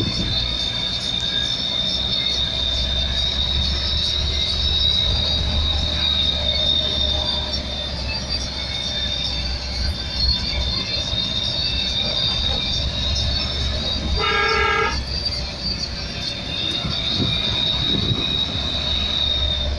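Bolero Maxi Truck driving, heard from inside the cab: a steady low engine and road rumble with a steady high-pitched whine over it. The horn sounds once, briefly, about two-thirds of the way through.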